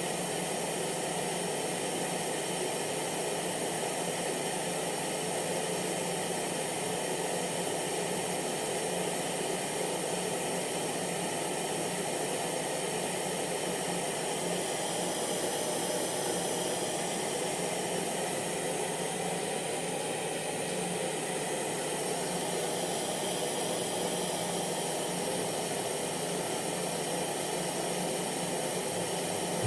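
Hair dryer running steadily: a constant blowing hiss of the fan with a faint motor hum.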